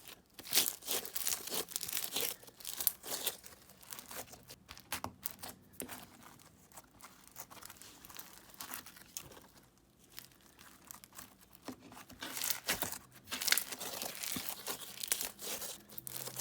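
Crunchy bead-filled slime being squeezed and kneaded by hand: dense crackling and crunching of the beads, thinning out in the middle and picking up again near the end.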